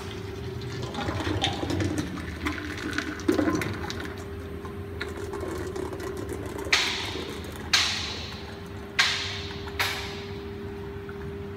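Honey dosing and drum-filling machinery running with a steady hum and a held tone, with a few knocks early on. In the second half there are four short, sharp hisses, each dying away quickly.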